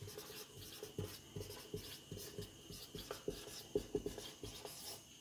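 Whiteboard marker writing on a whiteboard: a run of short, irregular strokes as a sentence is written out letter by letter.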